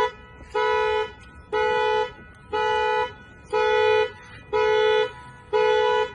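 2021 Nissan Altima's horn honking over and over as its anti-theft alarm goes off: even half-second honks, about one a second. The honking stops after the last one.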